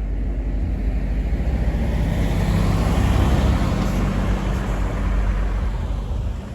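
A road vehicle passing by: engine and tyre noise over a steady low rumble, swelling to a peak about three seconds in and then fading.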